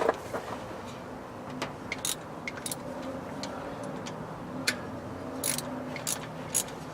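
Wrench and socket clicking and clinking against metal at irregular moments, some in quick little clusters, while bolts are worked loose on the engine.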